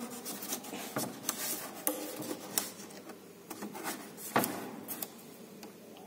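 A refrigerator's metal panel with its plastic air-duct insert being handled and shifted in place inside the freezer compartment: scattered light clicks and rubbing, with a few sharper knocks, the loudest about four and a half seconds in.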